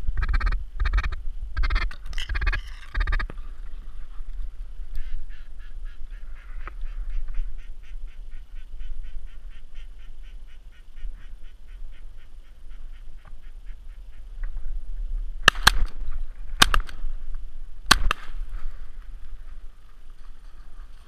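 Ducks quacking loudly for the first few seconds, then a long fast run of quacks, then three shotgun shots about a second and a quarter apart near the end.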